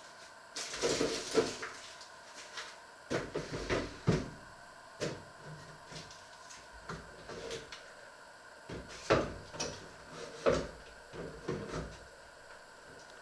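Irregular knocks, clicks and light clatter of someone handling things in a kitchen, such as cupboard doors or utensils. The louder knocks come about a second in, around four seconds, and near nine and ten and a half seconds.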